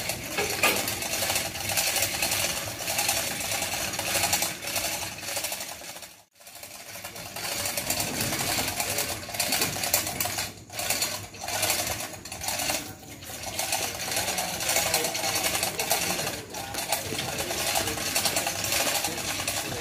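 Hand-pulled hoist on a truss tower, its line rattling through the block with a rapid run of clicks as it is hauled. The clicking drops out briefly about six seconds in.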